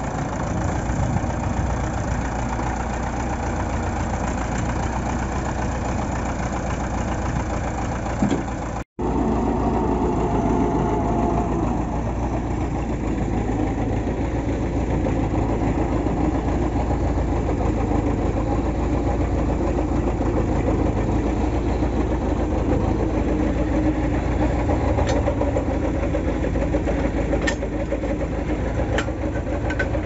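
Belarus MTZ-82 tractor's four-cylinder diesel engine running, then idling steadily after a short break about nine seconds in. A few light clicks come near the end.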